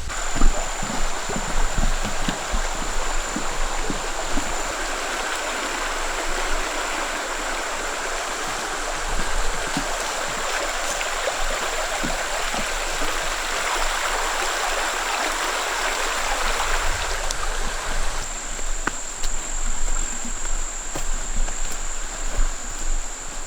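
A creek's water rushing steadily, swelling through the middle and easing off after about seventeen seconds. A thin, steady high whine runs above it, and soft low knocks come near the start and end.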